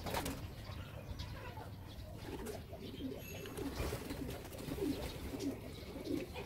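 Pigeons cooing, a string of short low coos repeating throughout, with a brief knock right at the start.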